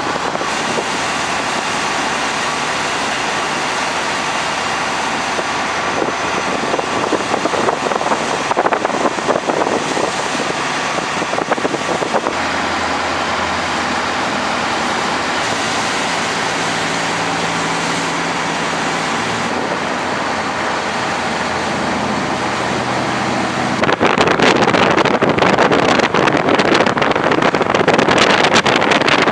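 Lifeboats running at speed side by side: a steady engine drone with the rush of water and spray against the hulls. About 24 seconds in it turns louder and rougher, with wind buffeting the microphone.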